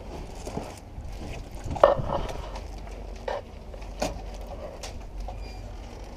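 Scattered sharp clacks and knocks, the loudest about two seconds in, over a low steady rumble.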